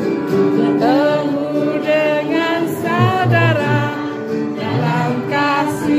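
A song with singing over instrumental backing, the voice gliding between held notes above a low bass line.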